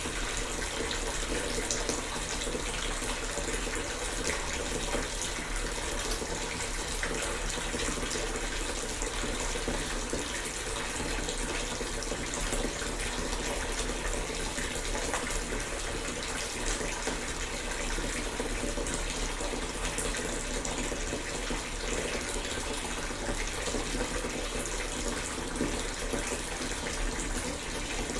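Bath tap running into a bathtub, a steady continuous gush of water.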